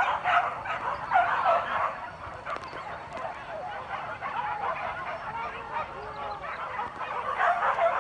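A pack of hunting dogs baying and yelping as they close in on a wild boar. Many overlapping calls are thickest in the first two seconds, thin out in the middle and build again near the end.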